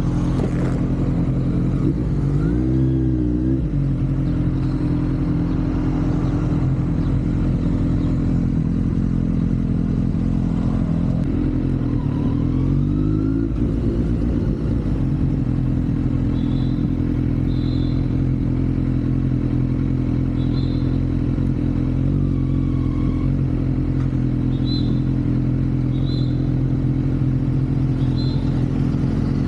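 Kawasaki Z900's inline-four engine running steadily under way, with the revs dipping and rising briefly about two seconds in and again about twelve seconds in, and wind on the microphone.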